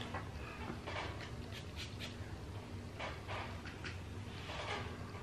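A man sniffing a paper fragrance sample held to his nose: several short, soft sniffs with faint rustling of the paper.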